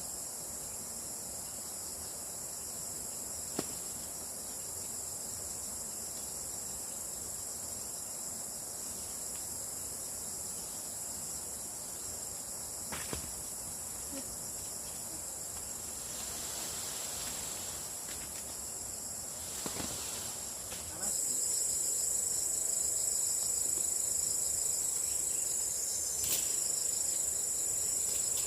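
Steady high-pitched insect chorus, stepping up louder about two-thirds of the way through, with a few faint clicks.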